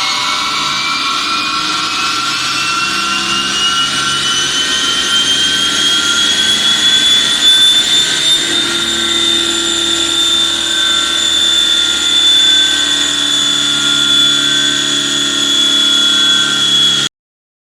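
Mercedes E350 CDI's 3.0 V6 turbodiesel, fitted with a straight-through exhaust, running hard with a high turbocharger whistle that rises in pitch for about eight seconds and then holds steady. The sound cuts off suddenly near the end.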